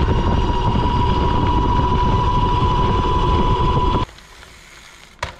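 Riding an electric mountain bike along a gravel path: wind rushing over the microphone and tyre rumble, with a steady high whine from the CYC mid-drive motor. It cuts off abruptly about four seconds in, leaving a much quieter background with a short click near the end.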